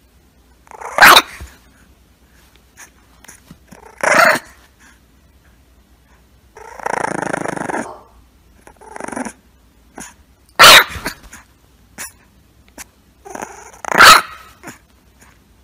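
Bulldog puppy barking: four loud, sharp, short barks spread several seconds apart, with smaller yaps between them and a longer growl about seven seconds in.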